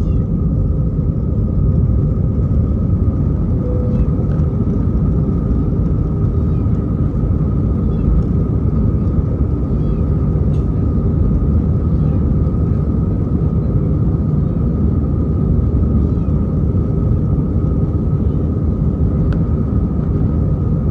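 Airbus A320-214 cabin noise heard from a rear window seat: a loud, steady deep rumble of its CFM56 engines and airflow, with a constant high hum running through it.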